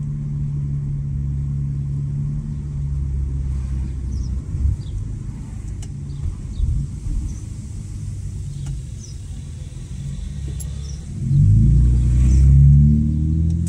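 Honda Accord 3.5-litre V6 with the muffler deleted, its exhaust rumbling steadily at low revs. About eleven seconds in it revs up, rising in pitch and getting louder.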